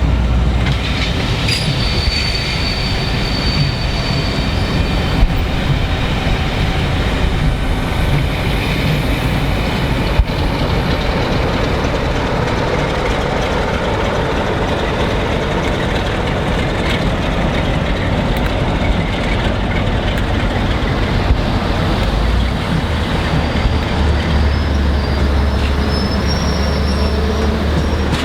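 A train running past with a steady rumble. High-pitched wheel squeal comes in a couple of seconds in and again near the end.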